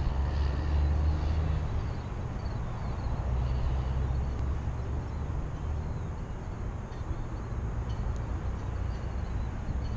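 Low, steady engine rumble that swells and eases, with faint high chirps above it.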